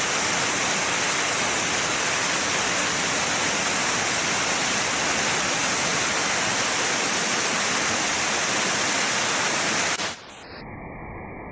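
Waterfall rushing, a steady loud roar of falling water. About ten seconds in it drops suddenly to a quieter, muffled rush.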